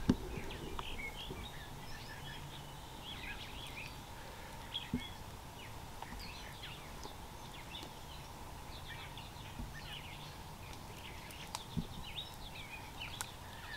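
Wild birds chirping and singing faintly, many short calls throughout, over steady low outdoor background noise, with an occasional soft knock.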